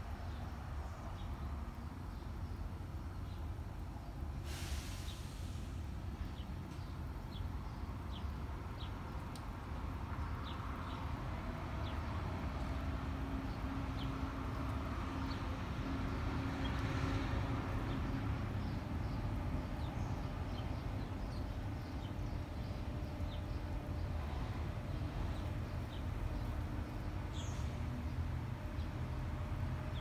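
Outdoor residential street ambience: a steady low rumble with a faint hum through the middle, and short high chirps of small birds scattered throughout. A brief hiss comes about four seconds in.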